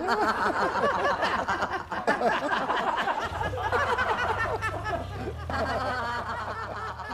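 Laughter: several voices chuckling and snickering over one another.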